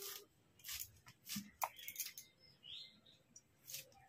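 Knife slicing banana flower florets against a wooden board: a faint, irregular series of crisp, short cuts.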